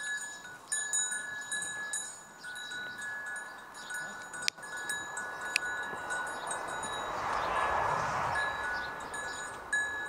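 Bells on cattle ringing as the herd moves and grazes, clear metallic tones breaking off and coming back irregularly. A soft hiss swells and fades about seven seconds in.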